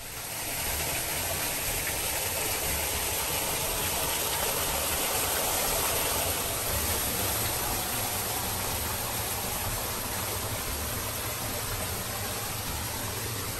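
Steady rush of falling water from a garden rock-wall water feature, splashing evenly without a break.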